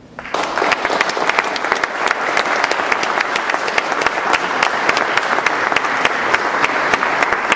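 Audience applauding: dense, steady clapping that starts a moment in.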